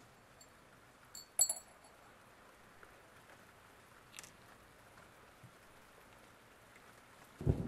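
A few sharp metallic clinks of small metal parts: two close together about a second and a half in, which ring briefly, and a single one around four seconds. Just before the end a loud, low rumbling noise starts abruptly.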